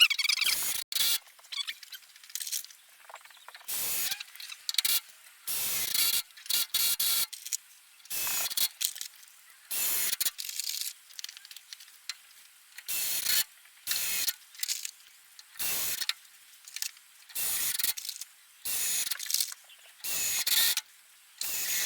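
Cordless drill driving screws in a string of short bursts, each half a second to a second long, every second or two, fixing the timber steps together.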